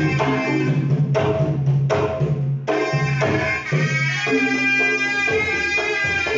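Sundanese tarompet, a double-reed shawm, playing a melody of held, shifting notes over drum accompaniment.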